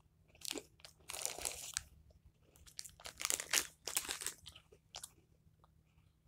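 Someone chewing crunchy graham cracker snacks close to the microphone, with crackling crunches in two main spells, about a second in and again around three to four seconds in.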